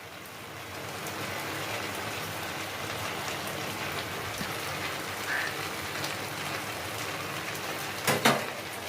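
Schezwan chicken in its sauce sizzling in a frying pan, a steady crackling hiss, with two sharp knocks against the pan near the end.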